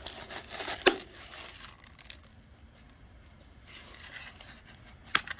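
Plastic plant containers handled with gloved hands: light crinkling and rustling of thin plastic, with a sharp click or knock about a second in and another near the end.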